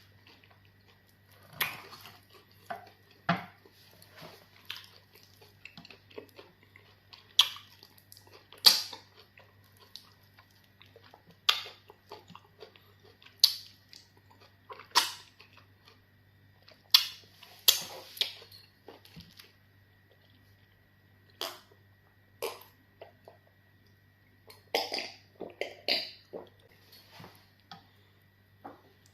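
Close-up eating sounds: irregular wet smacks and slurps of someone swallowing amala (fufu) with slimy okra soup, over a faint steady hum.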